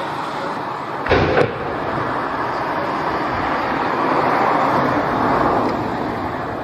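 Wind turbine tower demolition: a sharp double bang about a second in as the tower's base is blown. Then a steady rushing noise that swells slightly as the tower begins to lean.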